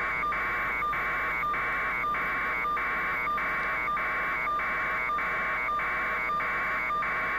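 Electronic buzz pulsing on and off about twice a second at an even level, an interference-like noise on a live helicopter news audio feed.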